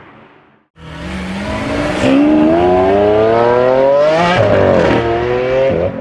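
Audi RS6 C7's twin-turbo V8 through a Milltek exhaust, accelerating hard. The sound cuts in just under a second in, the engine note climbs steadily, then dips sharply about four and a half seconds in, as at an upshift, and carries on.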